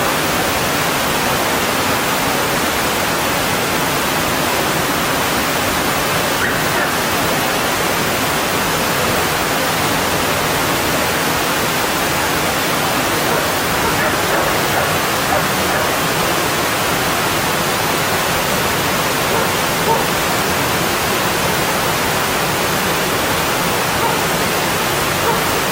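Mountain stream rushing steadily over rocks, a continuous, even splashing of water.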